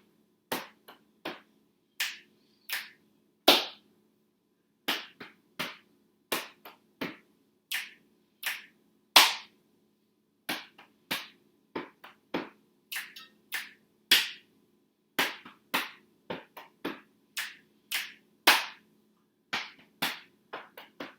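Body percussion played in a repeating rhythmic pattern: foot stomps, hand claps, slaps on the thighs and belly, and finger snaps, each a sharp separate hit.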